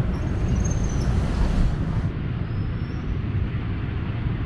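Steady city street ambience, mostly a low rumble of road traffic.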